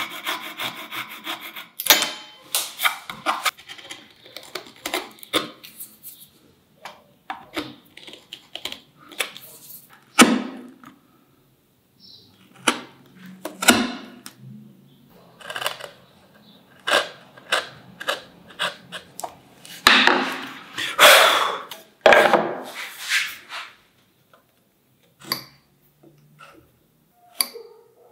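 Hand-tool woodworking on a dovetail joint. It opens with a Japanese pull saw rasping through light hardwood in quick strokes, followed by a run of separate scraping strokes as a chisel pares between the cuts. Near the end come a few short scratches of a marking knife scoring the wood.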